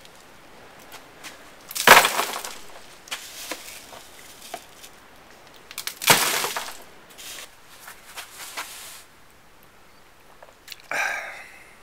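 Plastic litter scoop scraping through cat litter in a plastic litter pan, with two loud gritty rattles about 2 s and 6 s in as scoopfuls of litter are dumped into a cardboard box.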